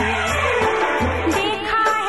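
Background music from a Hindi film song: a melody that wavers in pitch over a steady low accompaniment.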